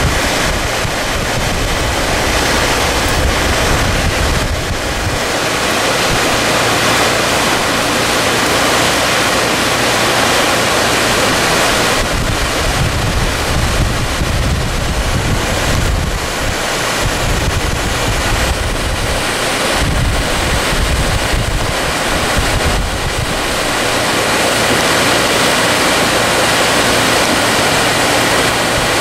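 Loud, steady rush of muddy floodwater surging through a channel and pouring over a sheet-pile wall, with wind buffeting the microphone now and then.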